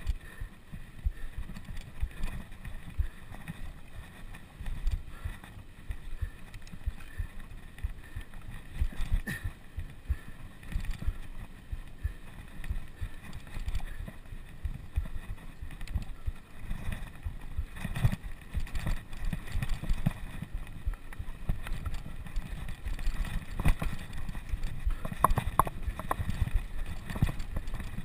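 Rumbling wind buffeting and handling noise on a body-worn camera's microphone while riding a bicycle, with frequent small, irregular low thumps.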